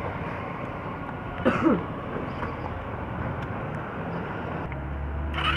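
Steady motor-vehicle engine and traffic noise, with a brief gliding sound about a second and a half in.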